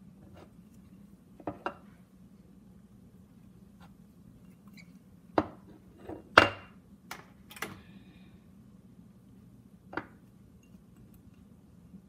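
Kitchen dishes and utensils being handled: a few short, scattered clinks and knocks, the loudest a little past the middle, over a low steady hum.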